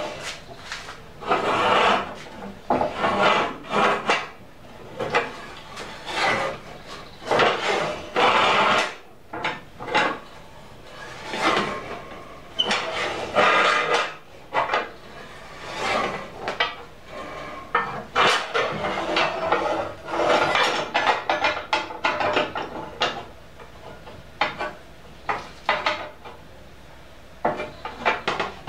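Rebar scraping and clanking against the steel plate, pivot pin and lever of a self-made rebar bender as bars are bent, with rasping metal-on-metal rubbing and knocks on the wooden bench. The sounds come in irregular bursts.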